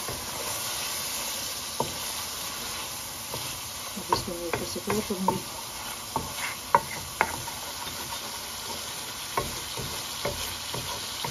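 Chicken and masala sizzling in a metal wok-style pan while a spatula stirs and scrapes through it, with scattered clicks of the spatula against the pan, busiest around the middle. The masala is being fried down on a lowered flame until the oil separates.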